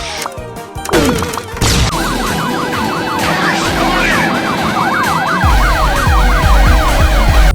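Several sirens yelping over one another, each a fast rise and fall in pitch, starting about two seconds in after a sweeping glide. Heavy bass comes in underneath past the halfway point.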